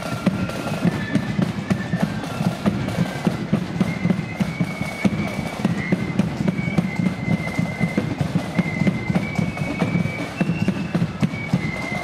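Marching flute band playing a tune: a high flute melody over dense snare drumming and steady bass drum beats.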